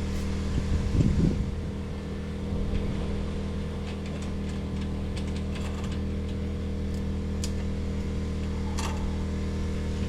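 An engine or motor running steadily with a constant low hum, with a few light clicks over it.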